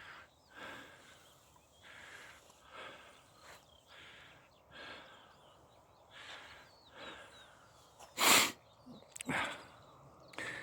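Footsteps of a hiker walking on a sandy path, soft crunches about once a second, with a loud sniff about eight seconds in and a weaker breath soon after. Faint bird chirps.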